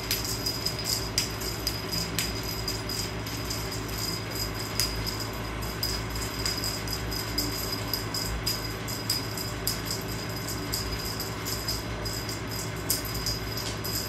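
Light, irregular jingling clicks from a cat wand toy being waved and flicked, over a steady low hum.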